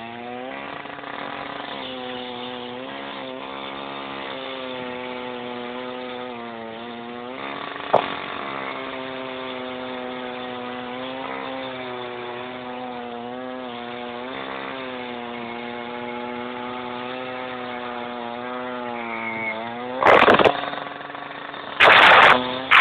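Petrol-engined saw running hard as it cuts through a speed camera's post, its engine note sagging and picking up again as the cut loads it. There is a sharp click about a third of the way in, and two loud, harsh bursts of noise near the end.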